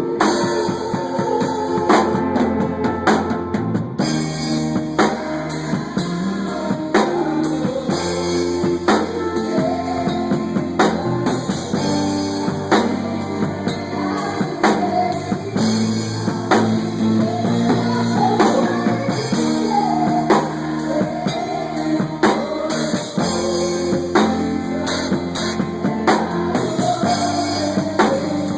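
Music with a drum kit keeping a steady beat, bass and guitar, and a wavering melodic line on top.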